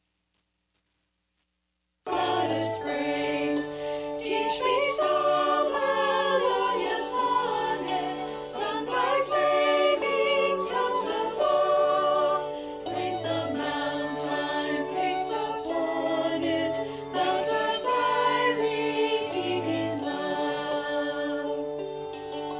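A small choir singing with cello, hammered dulcimer and flute accompaniment, starting suddenly about two seconds in after silence.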